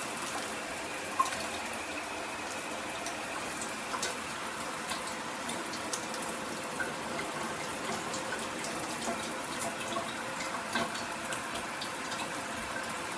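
Shower head spraying water steadily, an even hiss with light pattering, at what is called very low pressure. A single sharp click about a second in.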